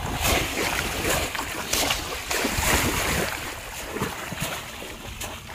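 Shallow river water splashing and sloshing as bamboo polo fish traps are plunged down into it and lifted again and again, in quick irregular splashes.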